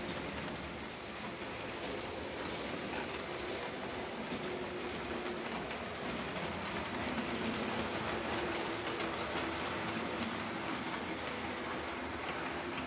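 Märklin H0 model train running along the track: a steady hiss of the wheels rolling on the rails, with some faint humming tones underneath.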